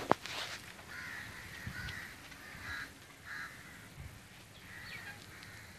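Crows cawing, a series of about five harsh caws. A sharp knock sounds just after the start.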